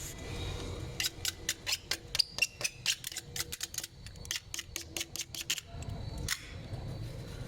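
A rapid, irregular series of sharp clicks, about five a second, over a low hum; they stop about five seconds in, with one more click shortly after.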